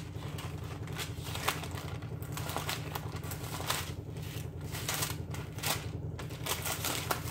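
Scattered light taps and clicks from hands working a device while a Bible verse is looked up, over a steady low hum.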